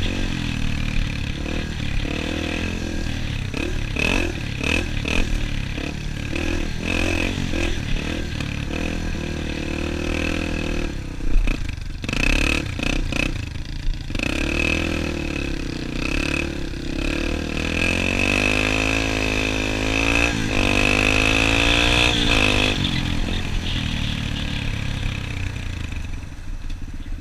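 Dirt bike engine under way, revving up and easing off as the rider changes speed, its pitch climbing steadily about seventeen seconds in before dropping back twice. A few sharp clattering knocks about eleven seconds in.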